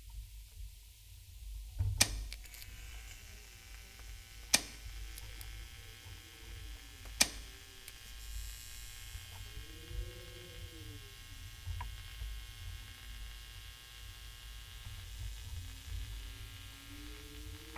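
Low droning hum of a film soundtrack, with three sharp knocks about two and a half seconds apart early on, a faint hiss, and a few soft tones that rise and fall, climbing toward the end.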